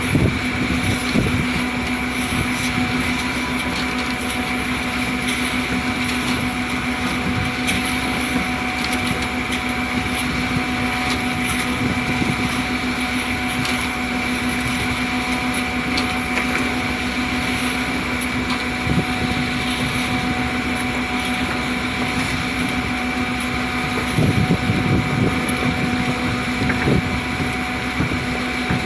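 Concrete mixer pump running: a steady machine hum with a constant pitch over a rough mechanical noise, growing louder and rougher for a couple of seconds near the end.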